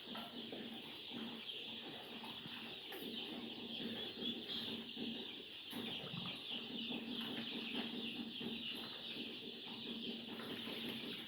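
A large flock of two-week-old layer chicks peeping together in a dense, steady chorus.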